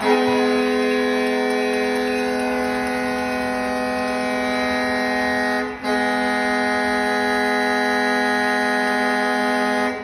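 Ice hockey arena goal horn blowing a steady chord of several tones, signalling a home-team goal. One long blast breaks off briefly a little under six seconds in, and a second long blast follows.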